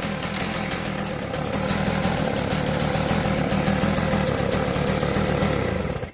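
Small snowblower's Tecumseh engine running steadily after being pull-started, with a fast even firing pulse; it cuts off abruptly near the end.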